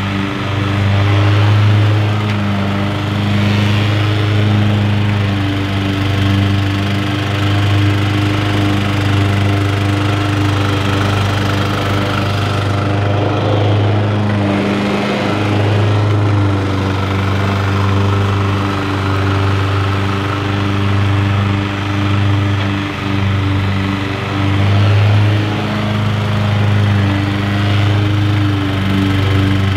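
Bob-Cat commercial 21-inch walk-behind mower's petrol engine running steadily at mowing speed as it cuts grass.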